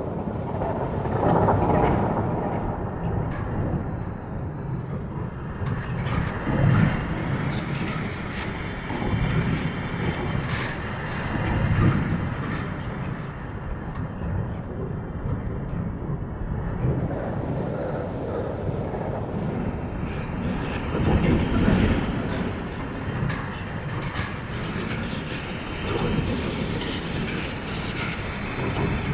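Sci-fi alien planet ambience sound effect: a continuous low, rumbling mechanical drone that swells and eases every four or five seconds.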